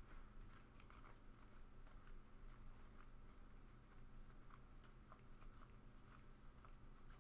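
Faint soft ticks of Panini Contenders football trading cards being slid and flipped through by hand, over a low steady hum.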